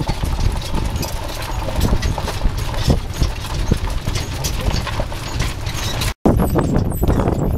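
Hooves of a pair of draft horses clip-clopping on a gravel lane as they pull a coach, over a steady low rumble. The sound drops out for an instant about six seconds in.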